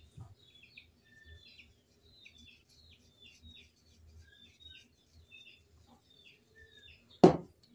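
Small birds chirping in the background: a steady scatter of short, high, downward-sliding chirps. A single sharp knock sounds near the end.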